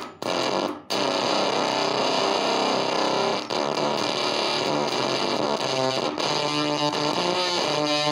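Electric guitar played through a Fender Blender clone fuzz pedal, switched on, giving a thick, heavily distorted tone. The playing breaks off twice briefly in the first second, then runs on, with notes left ringing near the end.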